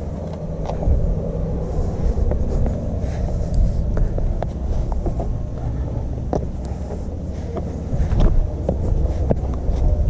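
Wind rumbling on the microphone, with scattered taps and scuffs from a hiker's steps and handholds on rock.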